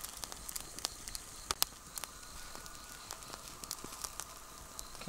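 Small open wood fire crackling, with irregular sharp pops and snaps.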